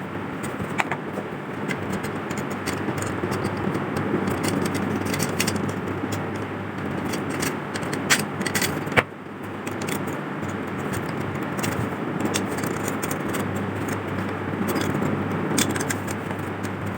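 Metal lamp parts clinking and scraping against each other and against hand tools, with scattered sharp clicks over a steady rushing noise and a low hum. The clicks are loudest about eight to nine seconds in.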